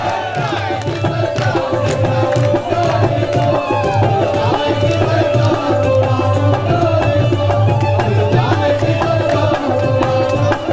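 Qawwali ensemble playing an instrumental passage between sung lines: fast, dense hand-drum strokes with a deep bass drum beat under a steady held melodic note.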